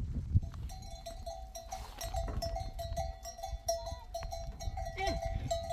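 Bells on a herd of goats ringing and clanking over and over in a quick, uneven pattern, with a goat bleating briefly near the end.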